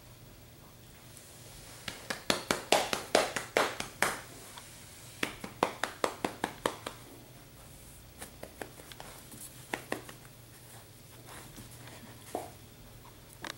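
Puppies' claws clicking on a hard floor as they walk and scamper: quick runs of sharp clicks, about five a second, in two bursts in the first half and fainter, sparser ones later.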